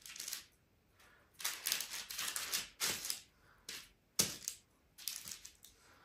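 Baking paper lining metal trays crinkling and rustling in a string of short bursts as dough balls are pressed and moved on it, with one sharper tap about four seconds in.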